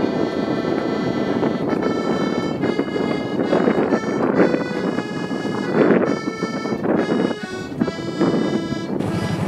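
Background music with held notes and chords that change every second or so.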